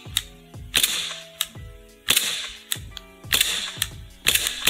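Army Armament R17 gas blowback airsoft pistol firing a string of test shots, each a sharp crack, about one every half second to second.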